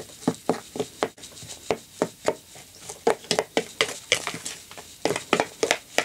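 Table knife cutting through soft dough and scraping against a plastic mixing bowl, as milk and water are mixed into flour in a cutting motion: a quick run of taps and scrapes, about three or four a second.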